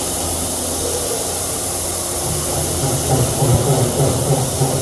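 Electric drill running steadily, a continuous hiss over a low hum.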